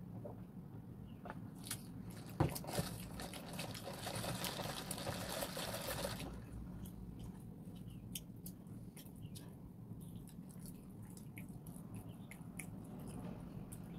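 Close-up eating sounds: a noisy sip of bubble tea through a straw from about two seconds in, stopping abruptly about six seconds in, then chewing with scattered small mouth clicks.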